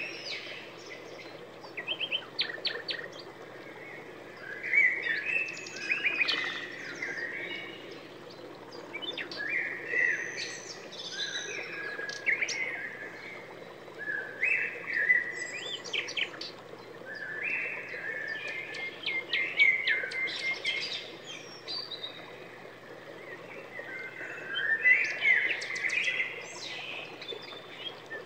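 A small bird chirping and singing in short phrases of quick high chirps and trills, a fresh phrase every couple of seconds.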